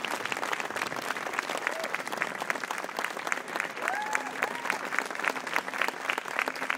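Wedding guests applauding steadily, many hands clapping at once, with a few voices calling out in cheers.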